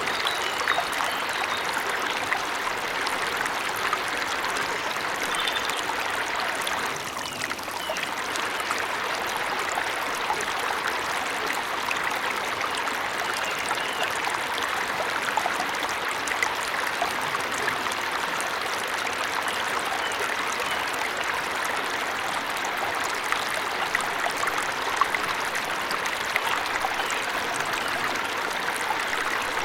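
Waterfall rushing steadily, a continuous hiss of falling water, with a few faint high bird chirps over it. The level dips briefly about seven seconds in.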